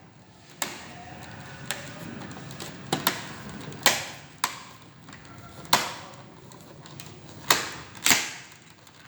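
Plastic snap clips of an HP 200 G3 all-in-one PC's casing clicking into place as the cover is pressed on: a string of about nine sharp, irregular clicks, the loudest a little before the middle and near the end.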